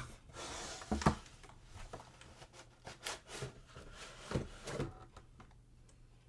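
Hands handling packaging: a rustle in the first second, then a few knocks and rubbing sounds that die down about five seconds in.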